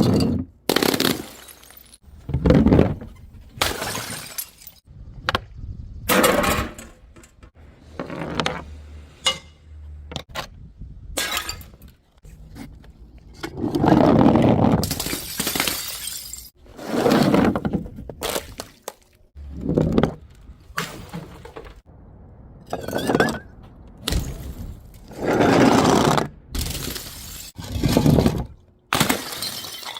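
Glass bottles smashing one after another: more than a dozen separate crashes, each with a burst of clinking broken glass, some trailing off for a second or so.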